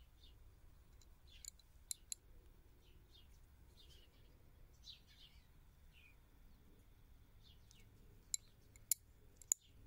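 Faint, short bird chirps repeat in the background. The louder sounds are sharp clicks of metal geocoins knocking together in the hands: a few about a second and a half to two seconds in, and three near the end.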